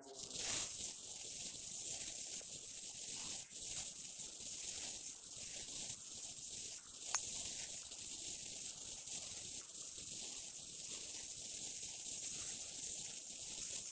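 Steady high-pitched hiss of the recording's own background noise in a quiet room, with a single faint click about halfway through.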